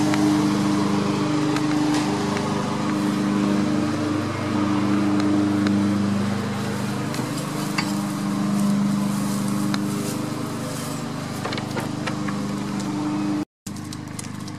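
Petrol lawn mower engine running steadily, its pitch dipping and rising slightly as it works. It grows fainter over the last several seconds and drops out for a moment near the end.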